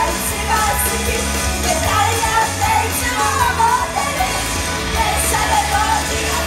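Live pop-rock idol song: a sung melody carried over loud band accompaniment with a steady bass line.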